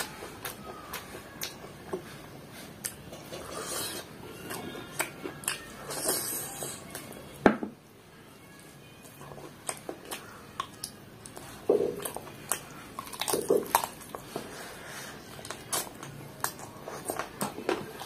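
A person eating chicken curry and rice by hand: chewing and wet mouth smacks on the meat, with fingers working the food on a paper plate. Many short clicks and smacks throughout, and one sharp louder knock about seven and a half seconds in.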